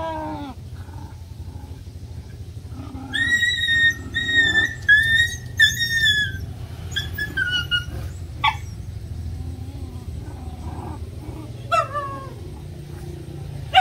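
Puppies whining: a run of high, drawn-out whines a few seconds in, then a few shorter, falling whimpers and a sharp yelp. A steady low hum lies underneath.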